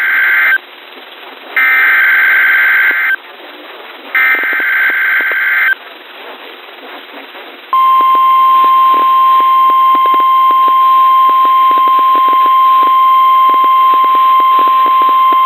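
NOAA Weather Radio alert signalling. It opens with the end of one SAME digital header burst, followed by two more complete bursts, each a harsh warbling data screech of about a second and a half. After a short gap, the steady 1050 Hz warning alarm tone starts about halfway through and holds, announcing the next warning. Faint static crackles run underneath.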